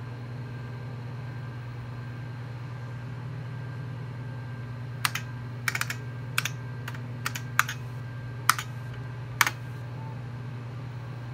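Keystrokes on an IBM PC XT keyboard: about eight sharp, separate key clicks over some four seconds as the hard-drive parking command "hdpark" is typed and entered. Under them runs the steady hum of the running computer.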